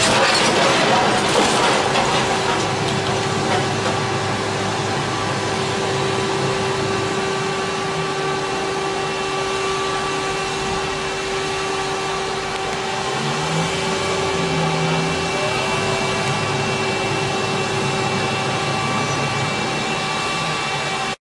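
Demolition machinery running steadily: a long-reach excavator working alongside a dust-suppression misting cannon, a continuous whining hum with a few knocks in the first couple of seconds.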